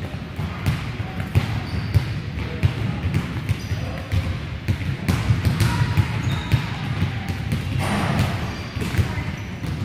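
Soccer balls being kicked and bouncing on a hardwood gym floor: many irregular thuds, overlapping from several players at once, in a large gym hall.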